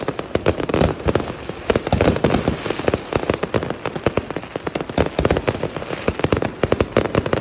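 New Year's fireworks and firecrackers going off in a dense, irregular barrage of bangs and crackles, several a second, over a continuous crackling haze.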